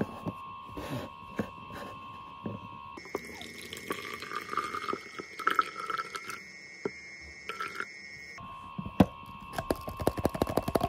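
Milk poured from one plastic baby bottle into another, with the pitch rising slightly as it fills. Plastic bottles and caps click and knock as they are handled, ending in a quick run of clicks, over a faint steady hum.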